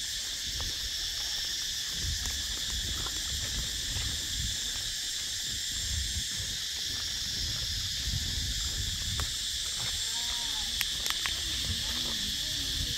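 Chorus of cicadas buzzing in a steady, high-pitched drone, with a low rumble underneath and faint voices in the last few seconds.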